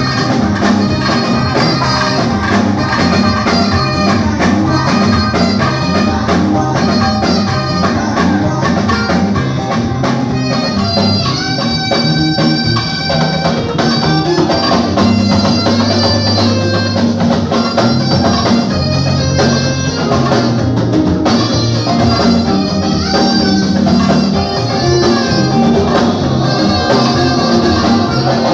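Live band playing steadily: drum kit and tambourine keeping the beat under a moving bass line, with long held melody notes on top.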